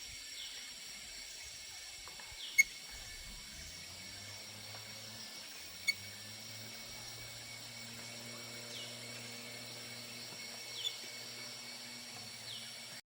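Outdoor tropical forest ambience: a steady high-pitched insect drone with short, falling bird chirps now and then. Two sharp clicks come a few seconds apart, and a low steady hum joins after a few seconds.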